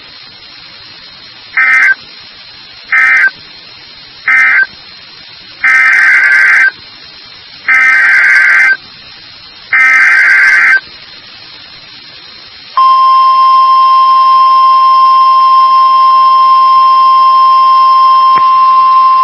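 Emergency Alert System data bursts. Three short buzzy end-of-message bursts close one alert, then three longer SAME header bursts open the next. About thirteen seconds in, a long, loud, steady attention tone begins.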